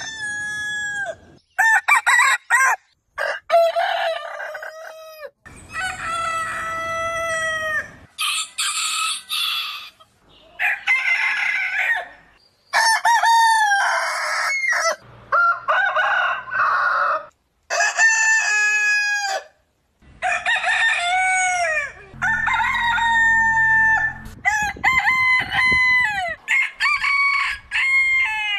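Roosters of different breeds crowing one after another, each a drawn-out cock-a-doodle-doo that falls in pitch at the end, the crows cut off abruptly and following each other closely with short gaps.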